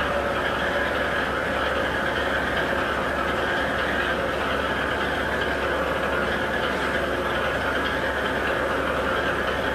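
Grain ship loader running steadily as its spout feeds grain into a barge: a constant machinery hum under an even rushing noise.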